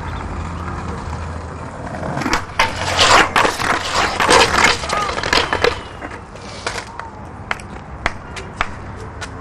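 Skateboard wheels rolling on paving, then a loud run of clattering knocks and scrapes as the board hits a metal handrail and the ground, followed by a few single clicks of the board settling.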